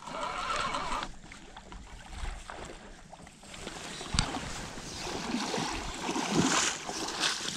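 Footsteps and rustling through tall grass and reeds on tussocky, marshy ground, with a dull thump about four seconds in.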